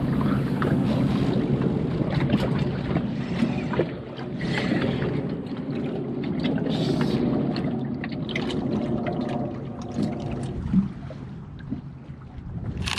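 Rumbling wind and water noise on a small fishing boat, dotted with light knocks and clatter; it eases off after about eight seconds, and a sharp click comes near the end.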